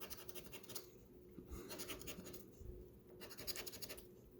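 Scratch-off lottery ticket being scratched: fine, rapid scraping strokes across the coating in several short spells separated by brief pauses.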